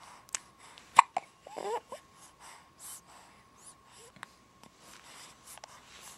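A woman hiccuping: one sharp, loud hiccup about a second in, followed half a second later by a short voiced sound, with soft breaths and fainter catches of the throat around it.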